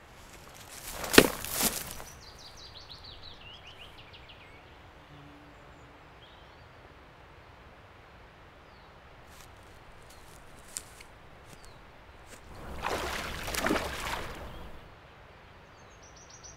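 Steady outdoor hiss of wind and flowing river water. It is broken by a sharp snap and swish about a second in, a short run of faint high ticks falling in pitch just after, and a longer rushing swish about thirteen seconds in.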